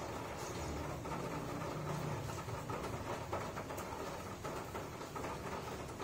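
Steady background noise with a low, engine-like rumble, a little stronger one to three seconds in.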